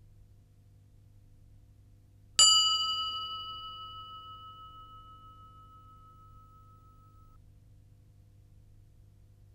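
A single bell ding about two seconds in, ringing out and fading away over about five seconds: the cue for the learner to give the answer.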